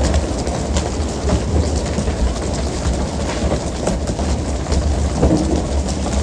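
A fishing boat's engine running with a steady low rumble under a constant hiss of splashing water, with scattered knocks from the pole-and-line fishing on deck.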